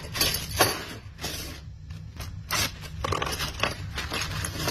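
Plastic packaging bag holding frost plugs crinkling in irregular bursts as hands handle and open it, over a low steady hum.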